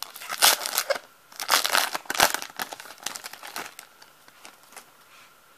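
Foil wrapper of a 2016 Donruss Optic baseball card pack crinkling as it is torn open and worked apart by hand, in several loud bursts. It dies down to faint rustles after about three and a half seconds.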